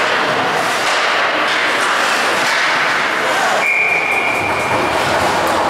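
Ice hockey play in an indoor rink: a steady rushing din of skates on ice and arena noise, with faint clacks of sticks and puck. About two-thirds of the way through, a single high steady tone sounds for about a second.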